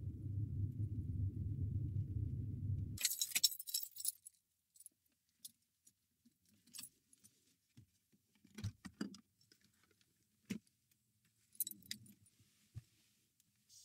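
Low rumble of a car driving, which stops sharply about three seconds in. Then a bunch of keys jangles on and off, with scattered clicks and soft knocks, as the gear lever and the keys in the ignition are handled.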